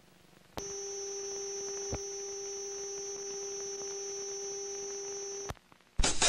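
A steady electronic tone with a faint high whine above it. It switches on with a click, runs about five seconds and cuts off with a click, and a rock song starts right after.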